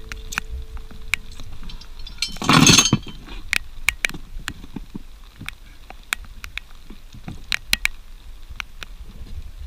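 Raindrops striking a hard surface close by, an irregular scatter of sharp plinks and taps. A loud brief rush of noise comes about two and a half seconds in.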